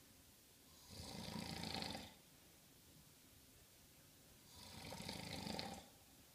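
A person snoring: two long, buzzing snores, the first about a second in and the second about four and a half seconds in, with quiet breathing between them.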